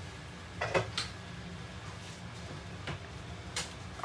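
A few light knocks and clicks, the loudest about three-quarters of a second in and smaller ones near the end, over a steady low hum.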